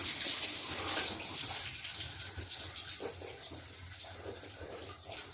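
Water running from a handheld bathroom shower, a steady hiss that drops off after about a second and dwindles away. A short knock near the end.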